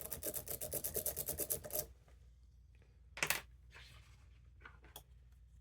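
A lock pick raked rapidly in and out of a Medeco biaxial cam lock's keyway, a fast scraping run of about ten strokes a second for roughly two seconds, then a single longer scrape and a small click.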